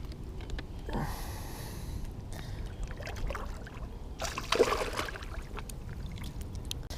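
Water sloshing and trickling around a kayak, with scattered small knocks and two louder splashes, one about a second in and one around four and a half seconds in.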